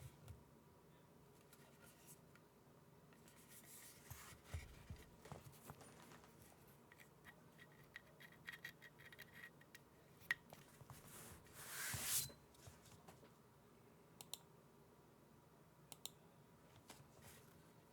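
Faint, scattered clicks and light rubbing from handling the keyboard and its keys, with no steady typing, and one louder scraping rub about twelve seconds in.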